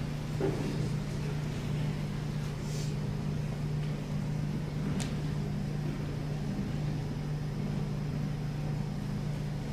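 Steady low electrical or mechanical hum filling the room, with one sharp click about five seconds in.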